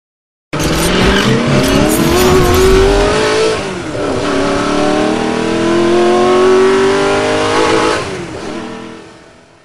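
1973 Chevrolet Corvette's V8 accelerating hard. The engine pitch climbs through one gear, drops at a shift about four seconds in, and climbs again through the next gear. The sound starts abruptly and fades away near the end.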